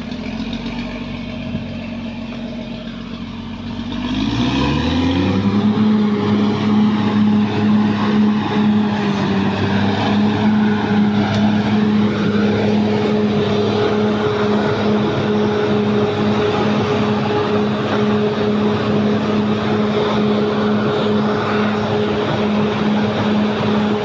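Caterpillar D6R XL bulldozer's diesel engine running steadily, then revving up about four seconds in and holding at the higher revs as the dozer drives forward.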